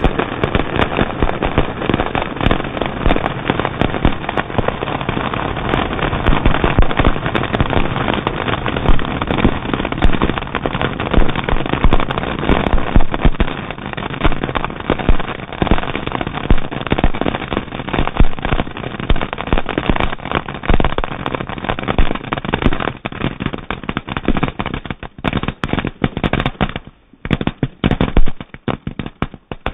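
A huge pile of firecrackers going off in one dense, continuous crackling barrage, with louder canister salute shells banging from a firing tube amid it. About 25 seconds in, the crackle thins out to scattered separate bangs.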